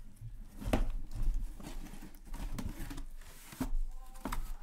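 Sealed cardboard boxes of hockey cards being lifted out of a shipping case and set down on a stack: a handful of irregular knocks with cardboard scuffing and rustling between them.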